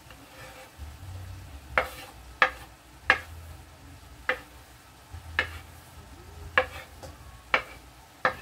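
A metal spoon knocking and scraping on a wooden cutting board as chopped scallion and peppers are pushed off it into a frying pan, about eight sharp knocks, over a low sizzle of curry chicken frying in the pan.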